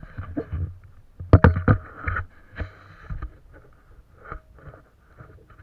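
Irregular knocks and thumps on a plastic sit-on-top fishing kayak as gear and the camera are handled, loudest in a cluster about a second and a half in, then lighter knocks that thin out.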